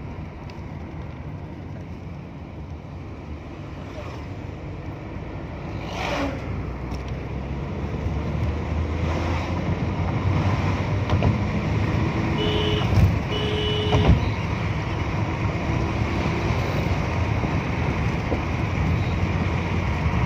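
Car's engine and road noise heard from inside the cabin, a steady rumble that grows louder after a few seconds, with two short beeps about halfway through.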